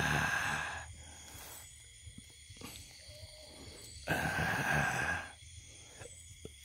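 A man's breathy, sighing voice, heard twice about four seconds apart, each time for a second or so.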